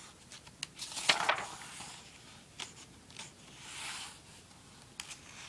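Paper pages of a printed manual being turned and handled: a few brief rustling swishes with small clicks, the loudest about a second in.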